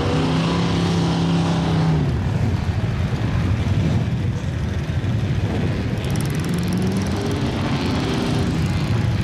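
Mud truck's engine revving hard as its tyres spin in deep mud while it is stuck in the pit. It holds high revs and then drops away about two seconds in, then revs up again around seven seconds.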